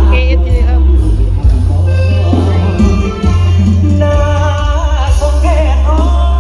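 Loud pop music with a singing voice played through an F26 4x4 speaker cabinet, its deep bass very strong and pulsing on and off under the melody.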